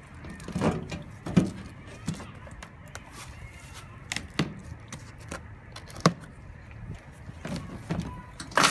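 Cardboard box being handled and slit open with a box cutter: a string of irregular knocks and scrapes on the cardboard, the loudest just before the end.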